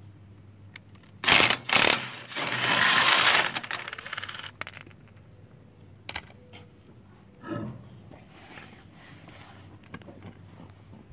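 DeWalt DCF899 20V brushless impact wrench spinning off a trailer's lug nuts: two short trigger bursts about a second in, then a longer run of about a second and a half. Scattered metallic clinks of the loose steel lug nuts follow.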